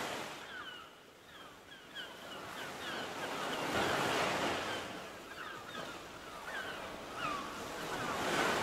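Waves washing in and out in slow swells, with short high chirps repeating over them.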